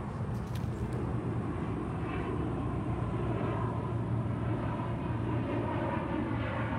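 Steady low rumble of outdoor background noise, even and unbroken.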